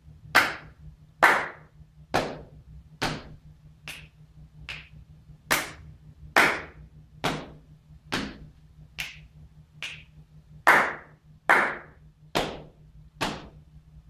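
Body percussion by one person: hand claps mixed with lighter hand strikes, in a steady beat of a little more than one stroke a second, some strokes clearly louder than others.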